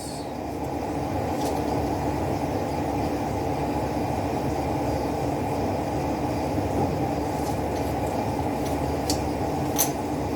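Steady low rumble of background machinery running without change, with a few faint light clicks.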